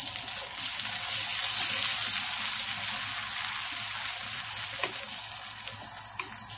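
Whole spices sizzling in hot oil and butter in a kadhai as they are stirred with a spoon, the tempering step at the start of a curry. The sizzle is loudest about two seconds in and eases off a little toward the end.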